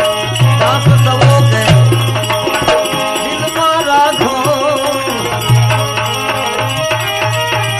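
Gujarati bhajan music with no words: a melody instrument carrying the tune over a steady hand-drum beat and jingling percussion.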